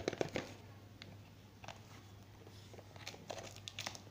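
Scissors and hands working at a cardboard parcel wrapped in a plastic mailer: scattered clicks, knocks and rustles of the packaging, with a cluster of knocks at the start and a few more snips and clicks near the end as the scissors cut into the wrapping.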